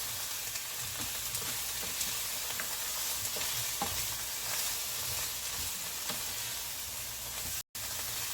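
Chicken feet frying in hot oil with ginger, garlic and onion: a steady sizzle with a few light clicks of a utensil stirring in the pan. The sound cuts out for an instant near the end.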